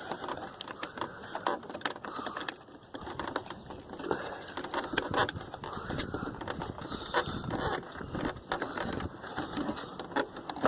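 Hands working the plastic retainer clip and headlight bulb in their housing: scattered sharp clicks and scrapes of plastic parts being pushed and turned into place.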